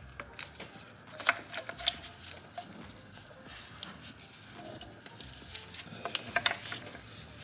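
Hands in disposable plastic gloves working hose fittings around an engine-bay oil catch can: glove rustle and irregular light plastic clicks and taps, the sharpest a little over a second in and again around six seconds.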